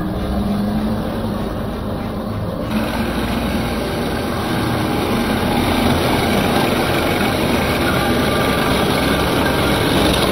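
Heng Long 1/16 Leopard 2A6 RC tank running through a shallow muddy puddle: a steady mechanical drive sound with water churning around the tracks. The sound becomes fuller and noisier about three seconds in.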